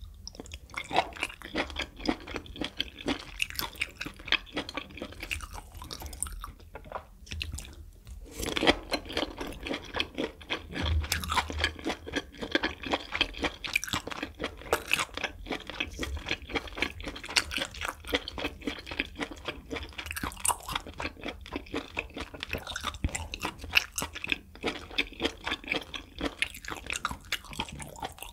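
Close-miked chewing of grilled beef intestines: a steady run of quick mouth clicks and smacks, with a short pause about seven seconds in.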